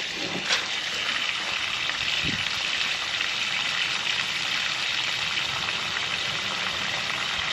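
Water gushing steadily as it fills the animals' drinking water, after a brief knock about half a second in.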